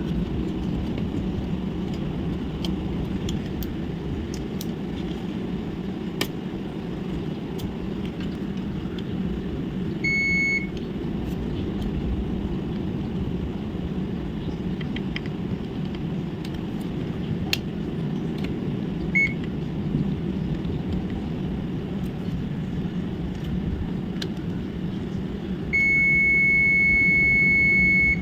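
Electronic beeper sounding over a steady low background noise: a short beep about ten seconds in, a brief chirp around nineteen seconds, and a long unbroken beep near the end. This is typical of a test meter's continuity or probe beep during circuit checks.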